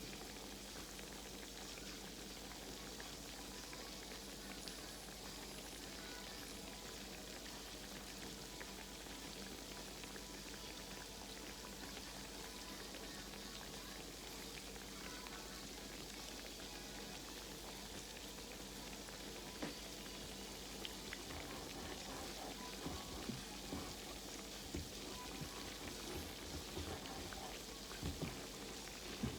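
Croquettes frying in hot oil in a pan: a steady sizzle with fine crackling, and a few light knocks in the last third.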